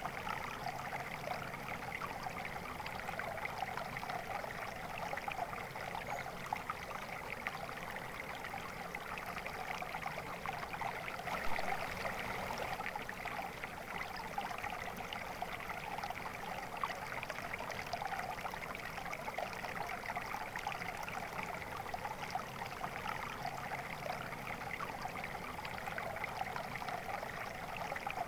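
Water flowing steadily in a stream, a constant rushing and trickling with no break.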